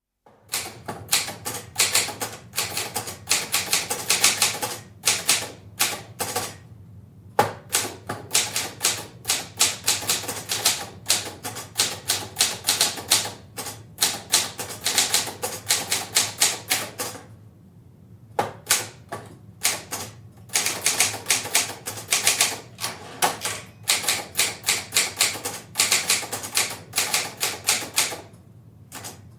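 Portable typewriter typed at a medium pace, heard from a distance in a live, echoing room: runs of quick key strikes broken by short pauses, the longest about seventeen seconds in.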